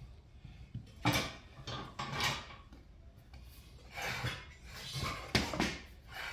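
Metal tire tools clanking and scraping against a beadlock wheel rim as the soaped tire bead is worked off, in four or five separate, irregular knocks spaced a second or two apart.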